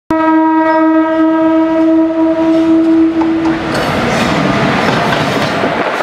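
Train horn sounding one long steady blast for about three and a half seconds, then the loud rushing rattle of a train passing close by.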